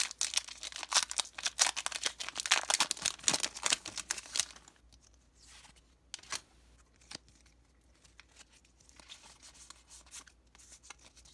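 A Pokémon booster pack's foil wrapper being torn open and crinkled, a dense crackling for the first four or five seconds. After that, quieter handling of the cards with a few light clicks.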